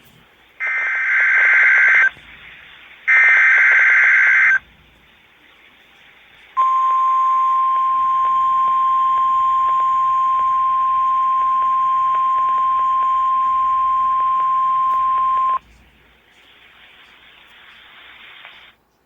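NOAA Weather Radio Emergency Alert System test signal. Two screechy SAME digital header bursts play, each about a second and a half long. After a pause comes the steady 1050 Hz weather radio warning alarm tone, held for about nine seconds, then faint radio hiss.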